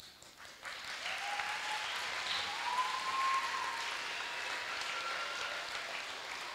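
Audience of schoolchildren and adults applauding, building up within the first second and then holding steady, with a few high voices calling out over the clapping.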